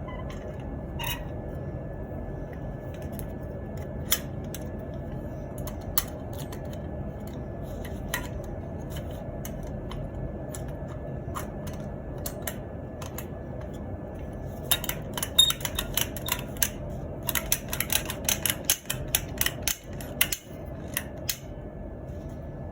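Sharp clicks and taps of small parts being handled during the strip-down of a Daisy 105 Buck BB gun, a few scattered at first, then a quick run of them in the second half, over a steady low hum.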